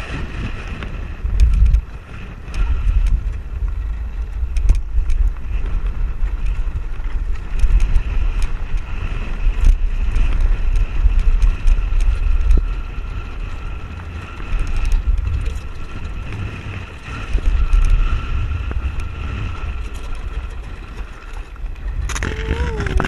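Land yacht running fast over sand, heard as heavy gusting wind rumble on the camera microphone. A steady faint high whistle and scattered small clicks and rattles run under it.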